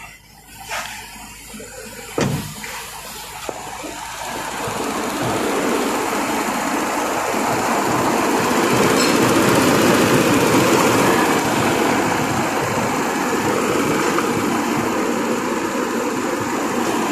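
Car air-conditioning fans running with the engine on: a steady rushing of air that builds over a few seconds and then holds, after a couple of knocks early on.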